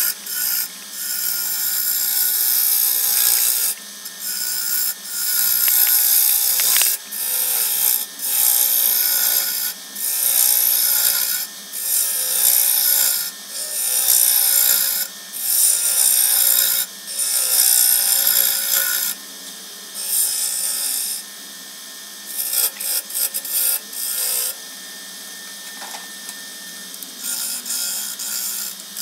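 A gouge cutting into green, wet cypress wood spinning on a wood lathe, in repeated hissing passes a second or two long with short breaks, over the steady hum of the lathe. After about two-thirds of the way through, the cuts turn short and scattered.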